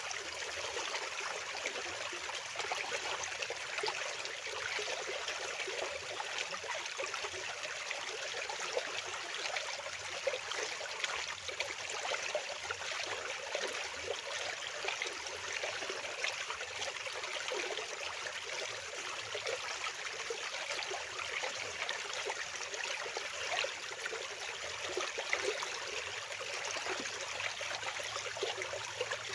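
Fast-flowing water rushing steadily and without pause, a continuous splashing hiss with little low rumble.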